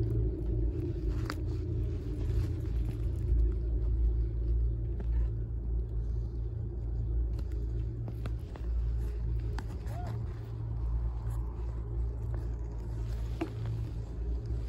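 Low, steady rumble of wind and the moving chairlift on a phone's microphone during a chairlift ride, with a few faint clicks.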